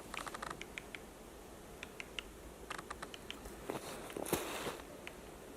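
Great spotted woodpecker pecking at a pine cone wedged in its tree-trunk anvil, prising out the seeds: faint, short, sharp taps in irregular little clusters, with a louder rustle a little past four seconds in.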